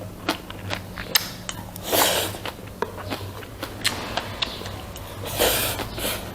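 Close-miked eating sounds: chewing with many small mouth clicks and smacks. There are two louder, brief rushing breaths or slurps about two and five and a half seconds in, over a steady low hum.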